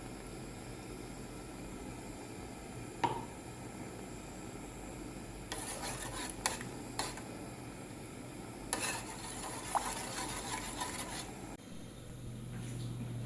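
Cooking sounds: a utensil stirring and scraping with clinks against cookware in two spells, over a steady hiss, with one sharp knock about three seconds in.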